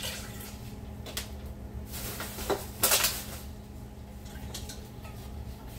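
Kitchen handling sounds: a few light clinks of dishes and utensils, with one louder, short clatter about three seconds in, over a steady low hum.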